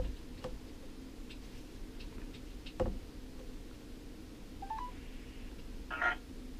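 A silent open phone line on a smartphone's speaker: a faint steady hum, with a few clicks as the phone is handled, a short electronic blip just before the middle and a brief rustle near the end.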